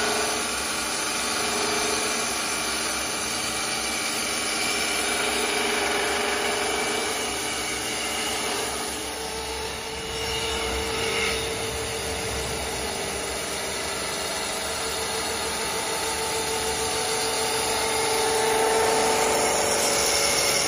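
CNC wood lathe running, its spinning abrasive brush sanding wheel rubbing against a turned wooden spindle to sand and polish it: a steady whir of motors with a continuous rubbing, scouring noise.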